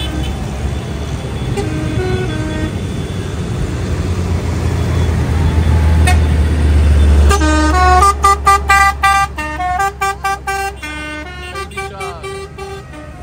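Diesel tractors driving past close by, their engine rumble growing to a peak about seven seconds in. Then a musical vehicle horn plays a quick tune of short notes that step up and down in pitch.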